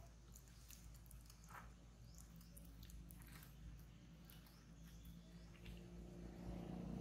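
Near silence: faint outdoor background with scattered soft clicks and ticks, and a low hum that grows louder near the end.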